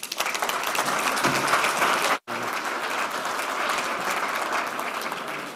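Audience applauding: a dense patter of many hands clapping that drops out for an instant about two seconds in and tapers off slightly near the end.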